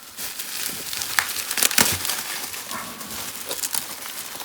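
A parcel's packing being pulled open and unwrapped by hand: continuous crinkling and rustling with many sharp crackles.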